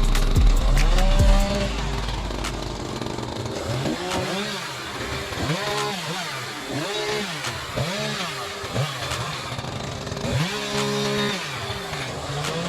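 Two-stroke chainsaw engine revving up and falling back repeatedly, about once a second, in bursts of throttle as in cutting brush; a louder low hum fills the first two seconds.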